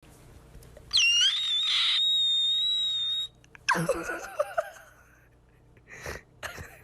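A loud, high-pitched shriek that sweeps up and holds one note for about two seconds. After it comes a shorter wavering cry that falls in pitch, then a few faint knocks near the end.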